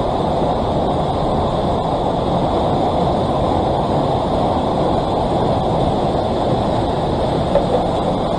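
Steady rushing roar of a river cascade of white water, close to the microphone, with a brief light knock near the end.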